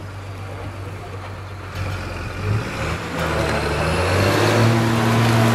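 Heavy diesel truck engine running, then revving up and growing louder about three seconds in as it drives under load over soft muddy ground.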